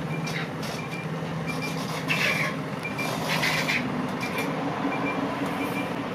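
Automated BRT bus running with a steady low engine hum. A short high beep repeats about every half second, and two brief bursts of hiss come about two and three and a half seconds in.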